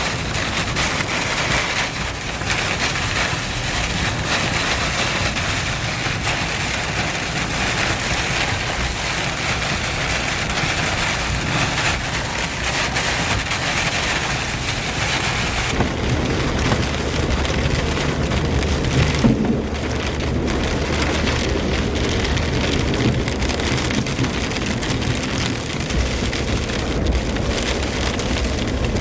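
Heavy rain falling steadily in a thunderstorm, a dense even hiss whose character changes abruptly about halfway through.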